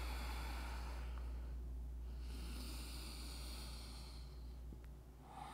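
A person breathing slowly in and out through the nose: two long, soft breaths with a short pause between, over a faint steady low hum.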